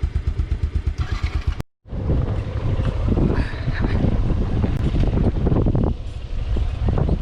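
Motorcycle engine idling with an even pulse, about eight beats a second. It cuts off abruptly, then heavy wind buffets the microphone over the running engine of a motorcycle under way.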